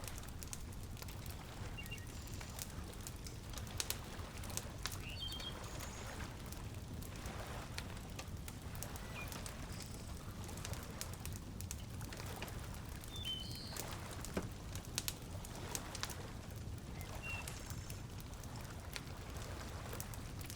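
Fireplace crackling with scattered sharp pops, over a low steady rumble of water, with short high bird chirps every few seconds.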